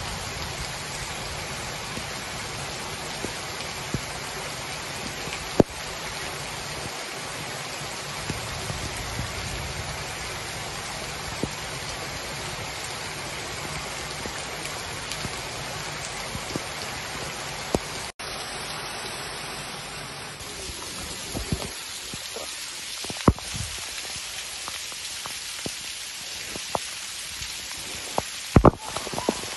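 Heavy rain falling steadily on a street and pavement. About two-thirds of the way through the rain gets a little lighter, with single drops ticking sharply close by.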